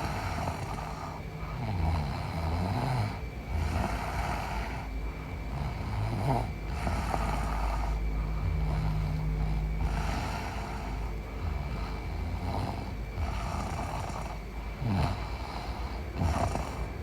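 A sleeping woman snoring, one snore every two to three seconds, each lasting a second or two.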